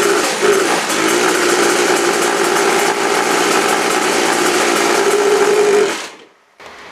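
Krause Duo moped's Simson two-stroke engine running at a steady speed on the twist-grip throttle, then cutting out suddenly about six seconds in. The mechanics put the stalling down to too much fuel.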